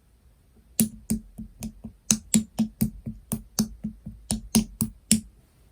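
Slime being pressed and poked, giving a rapid run of about seventeen sharp clicking pops, roughly four a second, that stops about five seconds in.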